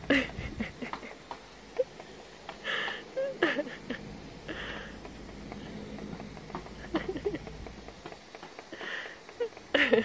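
A yellow-headed amazon parrot being misted with water from a pump sprayer: a few short hisses of spray, scattered sharp clicks, and small short low calls from the parrot.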